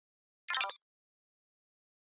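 A single brief, bright sound effect about half a second in, lasting about a third of a second, over otherwise near silence.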